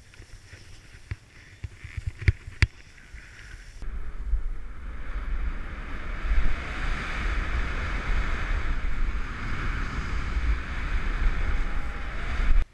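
Skis sliding over snow with a few sharp clicks early on, then, after a cut about four seconds in, a loud steady rush of wind buffeting the microphone mixed with skis hissing through powder, which cuts off abruptly at the end.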